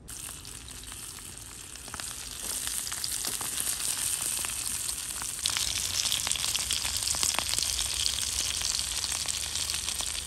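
Sausages and whole red chili peppers frying in butter in a steel pan over a small wood stove: a steady sizzle with scattered spits and pops. The sizzle gets louder in steps about two seconds in and again about five seconds in.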